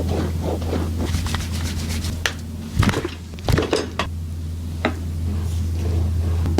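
Hands working on a body: a scatter of sharp slaps, knocks and cracks over a steady low hum, the loudest bunched about three seconds in, with another a little before five seconds.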